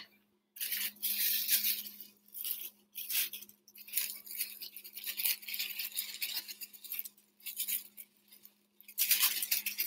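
Thin plastic bag crinkling in repeated short bursts while chopped nuts are shaken out of it into a bowl of batter.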